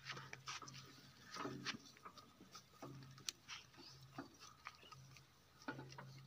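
Near silence: faint scattered clicks and light knocks, with a faint low hum coming and going.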